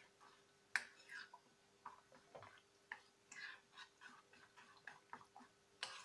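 Spoon stirring thick semolina and curd batter in a glass bowl as a little water is mixed in to thin it. Faint, irregular clicks and scrapes of the spoon against the glass, the sharpest about a second in and just before the end.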